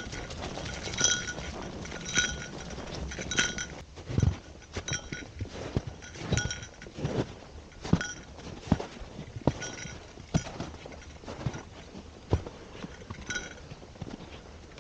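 Footsteps along a trail, with a small bell-like metal ring chiming in time with the walking about once a second; the ringing fades after about four seconds and comes back twice, while the footsteps go on.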